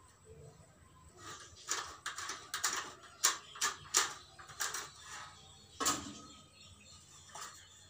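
Irregular sharp clicks and short scrapes of a metal window-frame channel being worked and handled by hand, coming as a quick run of strokes from about two to six seconds in.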